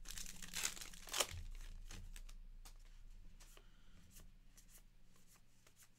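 A trading card pack's wrapper being torn open in the first second or so, ending in a sharp crackle. Then faint rustling and light clicks as the cards are handled.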